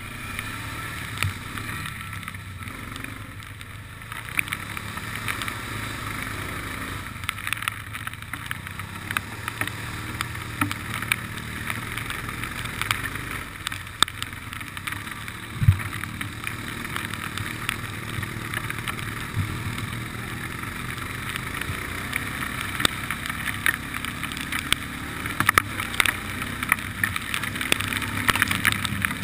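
ATV engine running steadily as the quad rides a wet, puddled dirt trail, with scattered knocks and rattles from bumps and one sharper jolt partway through.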